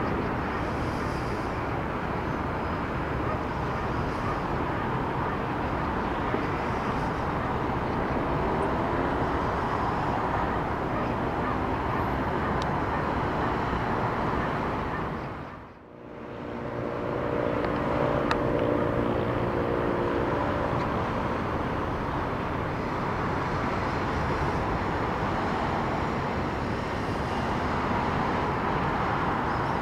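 Steady, distant city traffic hum. It fades out and back in about halfway through, and for a few seconds afterwards a low drone sits over it.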